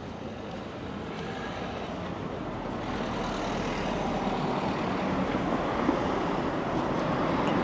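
Road traffic: a motor vehicle approaching, its tyre and engine noise growing steadily louder.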